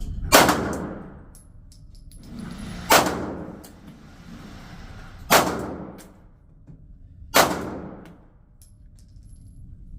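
Four single shots from a Glock 19 Gen 5 9mm pistol, fired a couple of seconds apart, each followed by an echoing tail.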